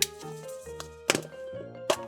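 Background music with a steady bass line, with two sharp clicks, one about a second in and one near the end.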